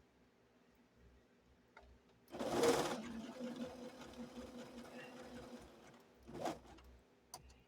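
Electric sewing machine starting up suddenly about two seconds in and running with a steady hum for a few seconds while stitching a quilt repair, then a short second burst of stitching.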